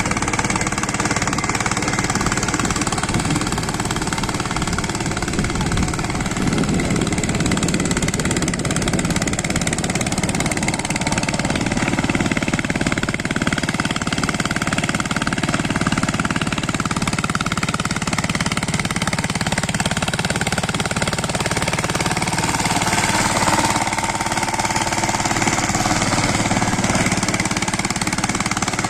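Samyak power tiller's single-cylinder diesel engine running steadily under load while its cage wheels churn through wet paddy mud.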